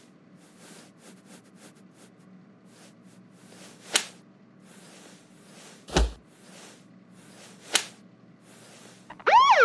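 Cartoon slap sound effects: three sharp smacks about two seconds apart, the middle one with a low thud under it. A siren starts wailing just before the end.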